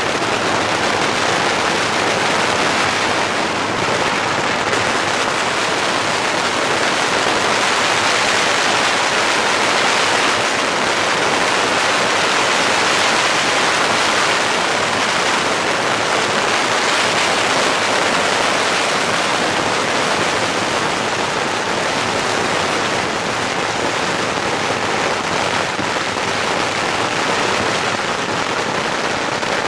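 Strings of firecrackers going off without a break, the bangs so rapid that they merge into one steady, dense crackle; near the end it begins to break into separate bangs.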